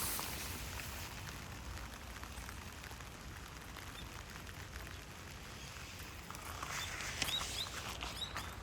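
Steady outdoor background noise with a low rumble, and a few short, high chirps near the end.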